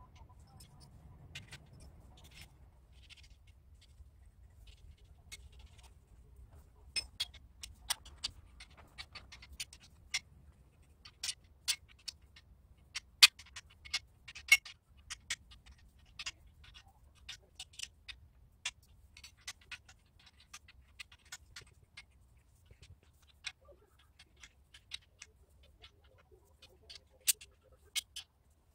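Irregular sharp metal clicks and taps as fittings are handled and fitted onto a steel angle-pipe frame. They come sparsely at first and more thickly after several seconds, with the two loudest about halfway through.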